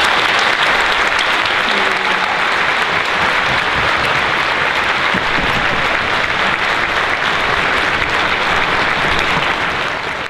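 Large audience applauding steadily in a standing ovation.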